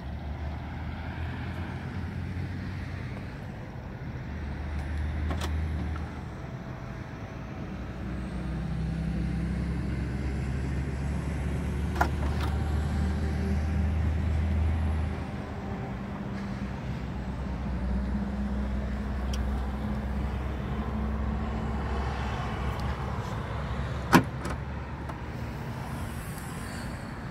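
Citroën C8 2.0 HDi diesel engine idling with a steady low hum that swells and fades. A sharp click comes near the end.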